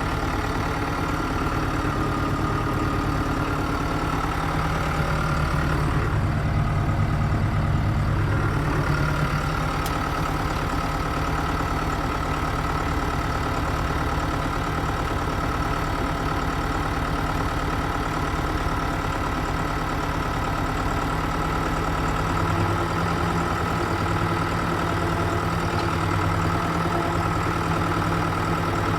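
John Deere 5510 tractor's four-cylinder diesel engine running steadily while the tractor is driven. Its low note swells briefly a few seconds in and shifts again near the end.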